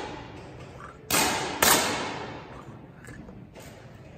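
Two 10 m air pistol shots from the firing line about half a second apart, each a sharp crack that echoes and dies away over about a second in the large shooting hall.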